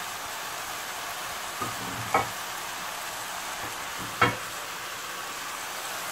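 Chicken, cabbage and diced bell peppers sizzling steadily in a hot pan while being stir-fried, with two sharp knocks of the spatula against the pan about two seconds apart.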